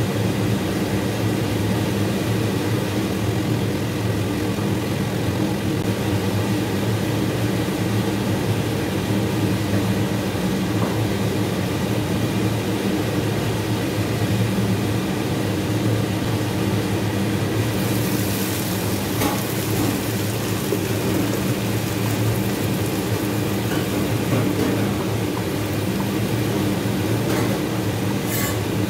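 Ground spices frying in hot oil, sizzling steadily over a constant low hum. The sizzle grows brighter a little past halfway.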